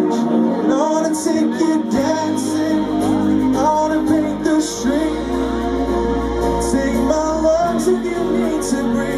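Live band playing a song: a voice singing over guitars, keyboard and drums, with cymbal hits and a deep low note held for a few seconds in the middle.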